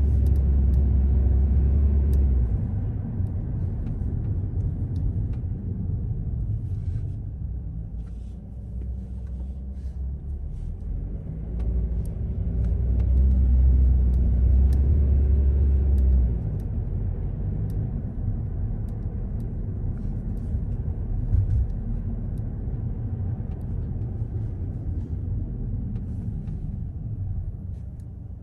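Car driving on city streets: a steady low rumble of engine and road noise, louder in the first couple of seconds and again from about twelve to sixteen seconds in, where it drops off suddenly.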